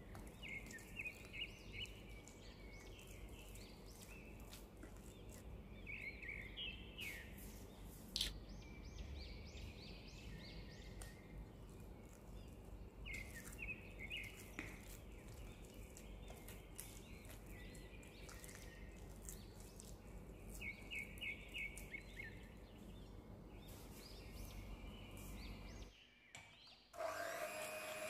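Silicone spatula stirring and scraping a thick cream cheese mixture around a glass bowl: soft scraping, with short squeaky scrapes every few seconds and occasional light clicks. Near the end, after a brief pause, an electric hand mixer starts up with a steady whine.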